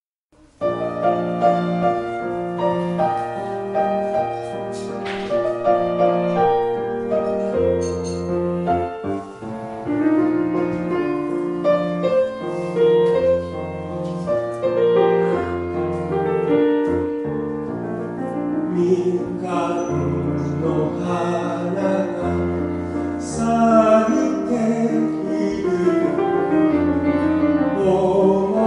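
Live piano playing the introduction of a Japanese children's song (dōyō), starting about half a second in. A man's singing voice comes in over it in the later part.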